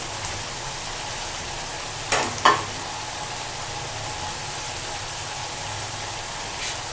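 Chicken masala sizzling steadily as it fries in a pan, with two sharp knocks a little over two seconds in, the second the loudest, and a fainter one near the end.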